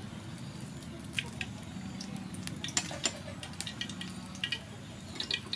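Soybean oil heating in a wok, with a light sizzle and scattered small pops and ticks.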